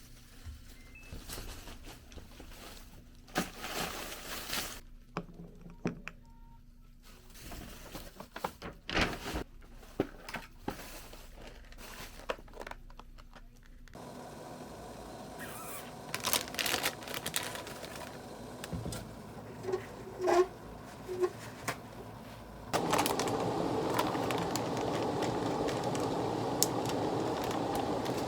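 Scattered clicks, taps and scrapes of small objects being handled. Near the end a steady, louder background noise starts suddenly.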